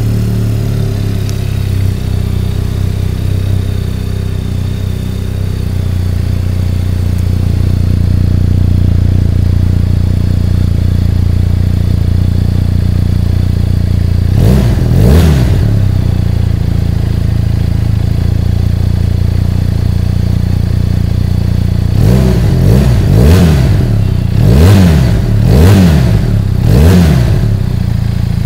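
Benelli Leoncino 500 Trail's 500 cc parallel-twin engine idling steadily just after being started, heard at its twin-outlet silencer. It is given a quick double throttle blip about halfway through, then a run of short revs near the end, each rising and falling back to idle.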